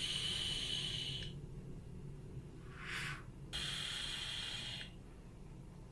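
Vape mod's atomizer coil firing with a steady sizzling hiss as a puff is drawn through it, twice: once at the start for about a second, and again from about three and a half seconds in, with a short breath between.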